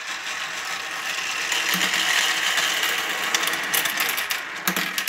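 3D-printed plastic marble machine being hand-cranked by the knob on top: a dense, continuous clicking and rattling of its printed gears, screw lift and marbles. It builds after about a second and thins out near the end.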